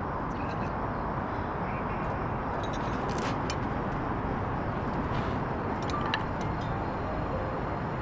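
Steady low background noise with a few light clinks of a fork against a plate, a cluster about three seconds in and another near six seconds.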